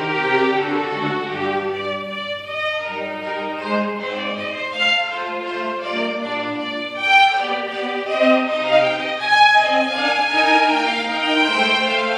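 String chamber orchestra of violins and cellos playing a Baroque concerto grosso, with sustained bowed notes over a moving bass line. The playing thins briefly a couple of seconds in, then grows louder and busier from about seven seconds in.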